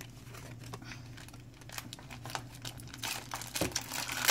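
Crinkling and tearing of a foil Pokémon booster pack wrapper being opened by hand, light crackles that get busier near the end.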